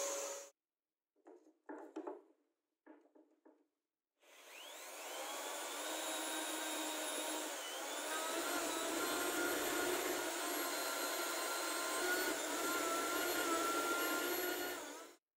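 Electric hand drill spinning up about four seconds in and drilling into plywood, its motor whining steadily, with a rougher low rumble as the bit bites; it cuts off abruptly near the end. Before it, a machine sound stops near the start, followed by a few short bursts.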